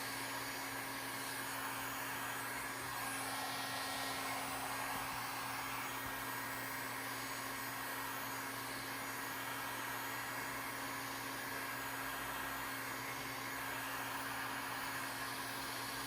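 A steady hiss with a low hum underneath, unchanging, that cuts off abruptly at the end.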